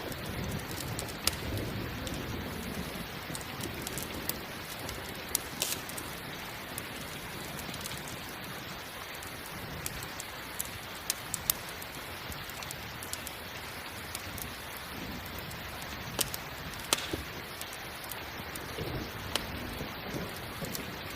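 Steady rain hissing, with scattered sharp crackles of a campfire and low rolls of distant thunder near the start and again near the end.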